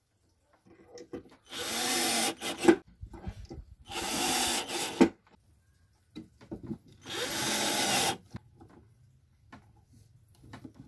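12-volt cordless drill-driver driving screws through the mounting plates of concealed cabinet hinges into plywood. It runs in three short bursts of about a second each, the motor whining up at the start of each. The first two end in a sharp click.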